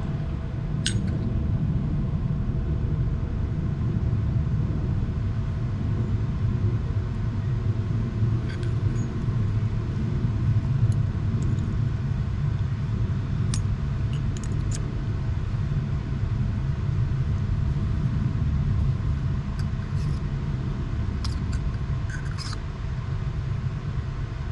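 A machine motor running steadily with a low rumble and a faint steady hum, with a few light clicks and ticks over it.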